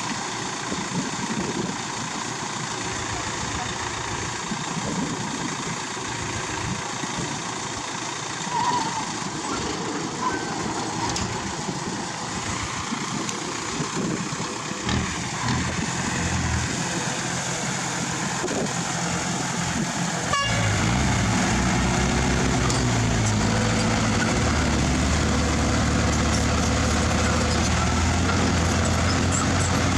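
Heavy diesel earthmoving machinery running on a construction site. About two-thirds of the way in, the sound changes abruptly to a louder, steady engine drone.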